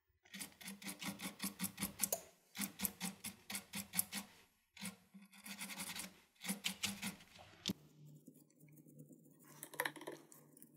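Small brush scrubbing a phone's earpiece speaker and its mesh grille: quick scratchy strokes, several a second, in short bursts with pauses between. Near the end the brushing stops and a low steady hum remains.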